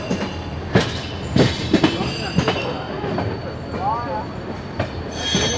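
Express train coaches rolling slowly over yard points and rail joints, the wheels giving irregular clacks and knocks over a steady rumble, with a brief high wheel squeal near the end.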